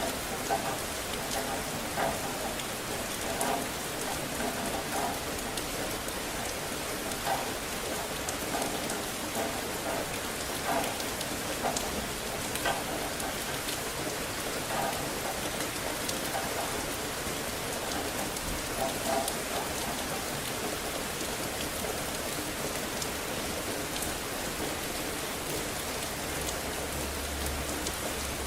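Steady rain falling on hard surfaces, with brief louder patters every second or two. A low rumble comes in near the end.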